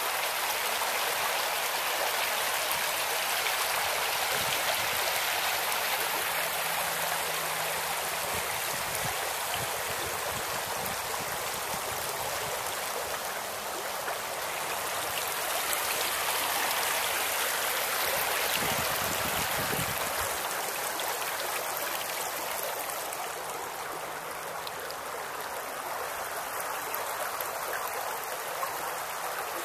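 Shallow creek water babbling steadily over rocks and stones.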